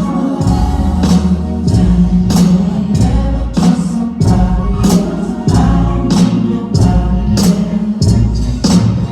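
Recorded music played loud through a sound system: heavy bass under a steady beat of about 100 beats a minute, with singing.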